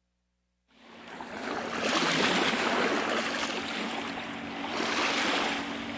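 Running water, a dense rushing that fades in about a second in and swells twice.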